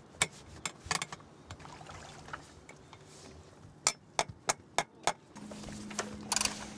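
A string of sharp, irregular clicks and knocks from hands handling the parts of a personal watercraft and outboard, such as its propeller, over a faint low steady hum that steps up in pitch and gets a little louder about five seconds in.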